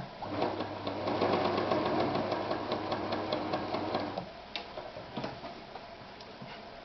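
Victoria 124 electric sewing machine sewing a straight stitch for about four seconds: a steady motor hum with fast, even needle ticking, which then stops. Two short clicks follow.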